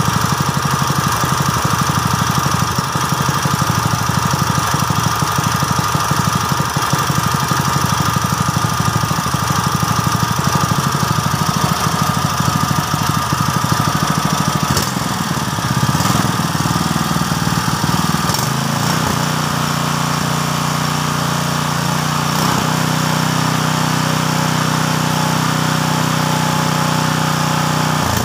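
GX200-type single-cylinder four-stroke petrol engine running at a low speed with a pulsing beat, then speeding up partway through when the throttle is opened. It settles into a steady, smoother run.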